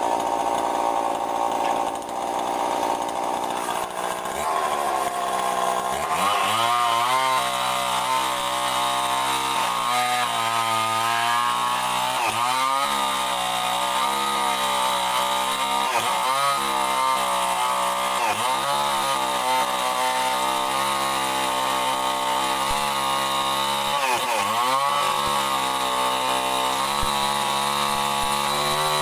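Chainsaw rip-cutting lengthwise along a mahogany plank. It runs at a steady pitch at first, then drops into the cut about five seconds in. From there the engine note sags under load every couple of seconds and picks back up.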